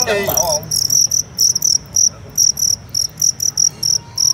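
Male fighting crickets chirping: a rapid run of short, high chirps, about four a second, starting about half a second in.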